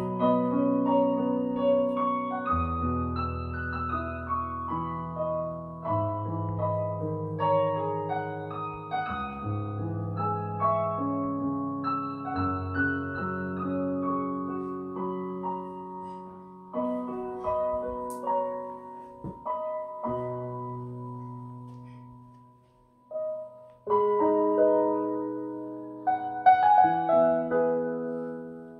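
Piano music played back through home-built open-baffle loudspeakers with large single full-range drivers, heard in the room. The playing fades almost to silence about 23 seconds in, then picks up again.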